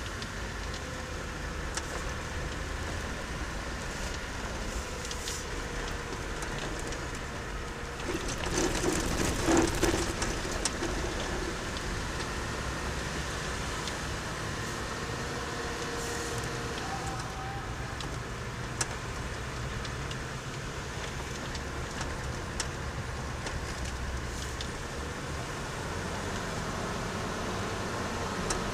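Car driving on a road, heard from inside: a steady low rumble of engine and tyres, with a louder, noisier stretch with a few knocks about eight to ten seconds in.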